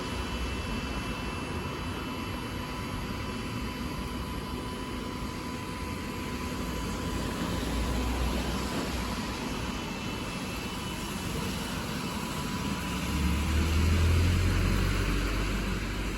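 Road traffic on a wet street: a steady hiss of tyres and rain with heavy engines rumbling past, the loudest rumble swelling about thirteen seconds in as a vehicle pulls by.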